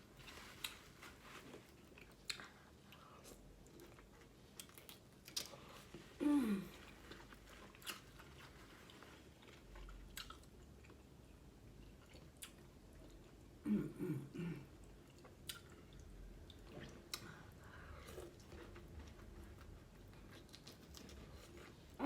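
Close-up chewing of boiled lobster tail meat: soft, wet mouth sounds with scattered small clicks. Twice, at about a quarter and two-thirds of the way through, comes a short vocal sound that falls in pitch.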